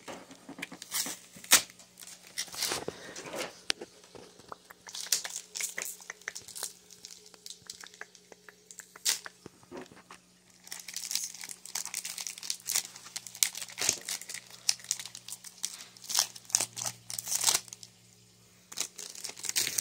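Foil wrapper of a Pokémon trading-card booster pack being torn open and crinkled, in irregular bursts of sharp crackling rustle.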